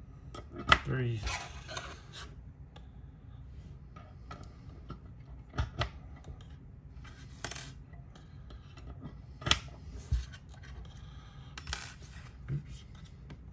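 Steel hex keys clinking as they are dropped into and set in the holes of a hex key holder: a scattering of sharp metallic clicks, some with a short ring, the loudest about a second in.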